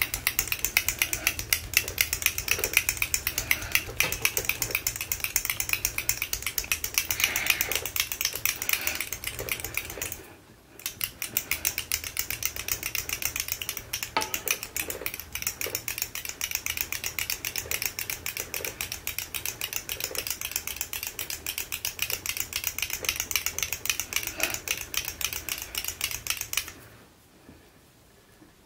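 A glass nail polish bottle shaken hard by hand, its mixing ball clicking rapidly inside, with a brief pause about ten seconds in; the shaking stops near the end. It is mixing polish restorer into old, dried polish.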